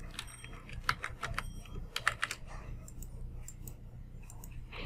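Typing on a computer keyboard: a quick run of keystrokes in the first two and a half seconds, then a few scattered, fainter clicks.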